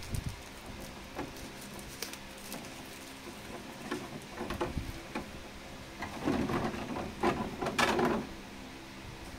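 Thin protective wrapping sheet rustling and crinkling as it is handled and peeled off a plastic figure, with scattered light crackles and a louder stretch of crinkling about six to eight seconds in.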